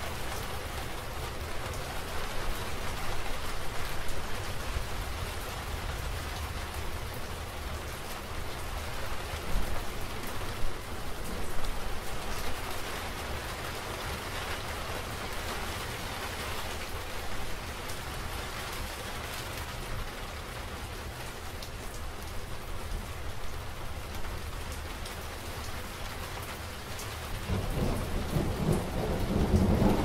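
Steady rain falling in a thunderstorm, with a low rumble of thunder swelling near the end.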